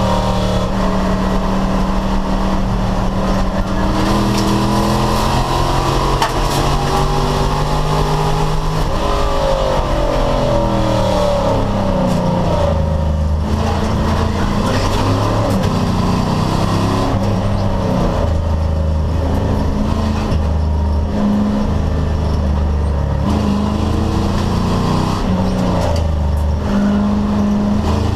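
American Sedan class race car's V8 engine running hard at a steady pitch, then dropping in pitch about ten seconds in as the car slows, and rising and falling through the gears for the rest.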